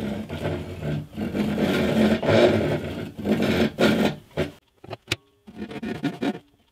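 Hand saw cutting across the end of a wooden guitar neck, steady rasping back-and-forth strokes about one a second. The sawing stops after about four and a half seconds, leaving fainter, sparser sounds.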